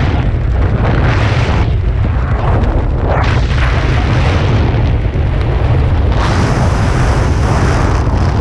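Heavy wind buffeting on an action camera's microphone, a steady low rumble with gusts of rushing hiss, as a tandem parachute flies its final approach to landing.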